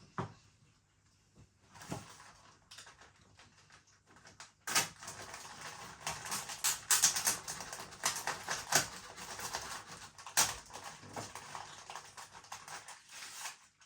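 Plastic biscuit packaging crinkling and crackling as it is handled and opened: a few faint clicks, then a dense run of crinkling starting about five seconds in and lasting most of the rest.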